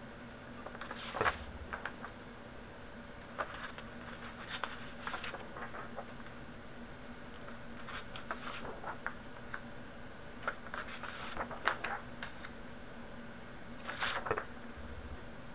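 Omnikey Evolution keyboard being handled: scattered clicks and short rustling sounds in irregular groups, a second or more apart, not a steady run of typing.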